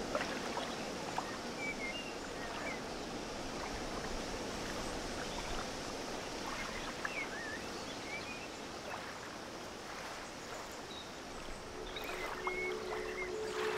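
Steady outdoor background noise, a soft even rushing hiss, with a few faint bird chirps scattered through it. Near the end two steady held tones come in.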